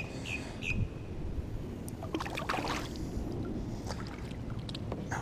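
Low rumble of a plastic kayak and the water around it shifting while a largemouth bass is handled and let go, with a few brief knocks and rustles around the middle. A bird's short falling chirps, about three a second, stop within the first second.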